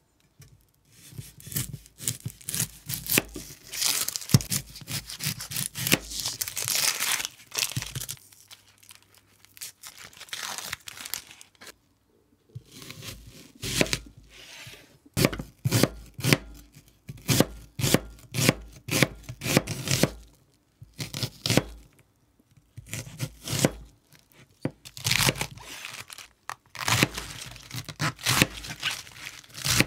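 Food preparation with a kitchen knife on a cutting board. A whole onion's dry papery skin crackles and tears as it is trimmed and peeled, then come separate, fairly even knife strokes on the board as the onion is cut and then cabbage is sliced.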